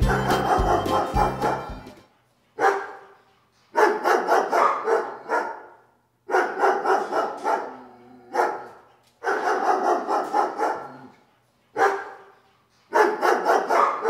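A fiddle tune ends about two seconds in. Then a dog barks in a string of short bouts of quick barks, with brief pauses between them.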